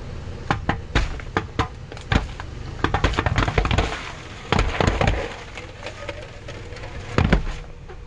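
Car tyre rolling slowly over a row of sealed aluminium soda cans, the cans crushing and bursting open one after another with sharp pops and cracks, thickest a few seconds in, with one more loud burst near the end.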